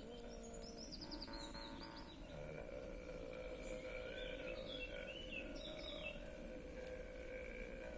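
Small birds singing in short descending chirping trills, twice, over a faint steady hum.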